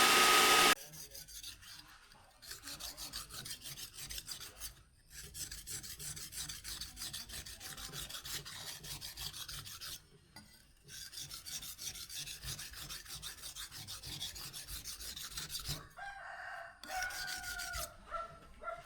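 A power tool cuts off just after the start, then quick, rasping back-and-forth strokes of a steel blade being hand-filed or rubbed on an abrasive, pausing briefly twice. Near the end a rooster crows.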